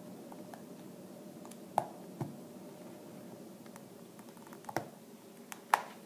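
Small scattered clicks and snaps of a flat-head screwdriver prying at the seam of a URC MX900 remote's plastic case as the top shell's edge is worked loose, with a few sharper clicks about two seconds in, near five seconds and near the end.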